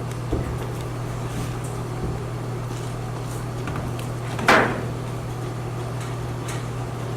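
Quiet handling of a rubber window weatherstrip as the installation cord is pulled to work its lip over the pinch weld, with a few faint clicks and one short, louder rubbing knock about four and a half seconds in, over a steady low hum.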